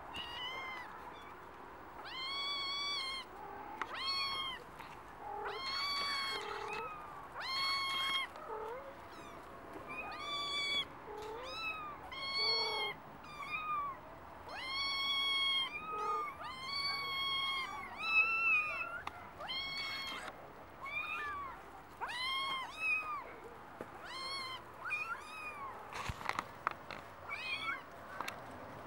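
Five-week-old Norwegian Forest Cat kittens mewing, high-pitched calls one after another, roughly one a second, overlapping at times. The kittens find the raised catwalk scary, and their cries come from that unease.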